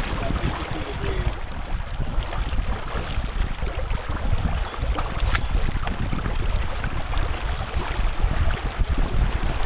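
Wind buffeting the microphone: a steady, gusting low rumble with a hiss over it, and two faint clicks about five and a half seconds in.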